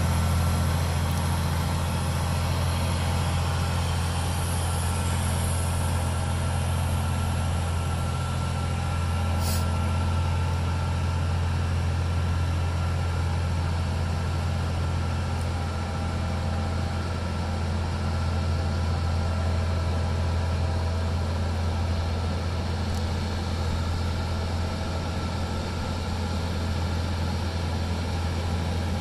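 Steady low engine drone from the aircraft tug pushing back a Boeing 777-200ER, with a faint higher hum over it. A brief high squeak comes about nine and a half seconds in.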